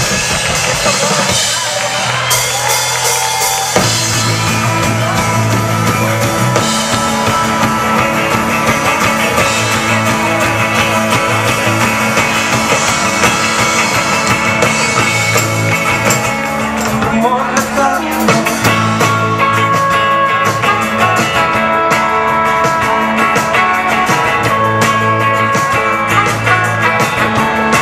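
Rock band playing live on acoustic guitar, electric guitars and drum kit, with the full band and bass notes coming in about four seconds in.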